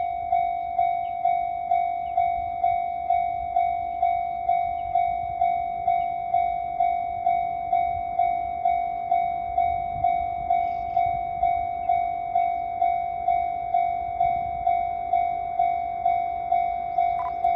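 Japanese railway level-crossing warning bell ringing, a steady electronic clang repeating at about two strokes a second.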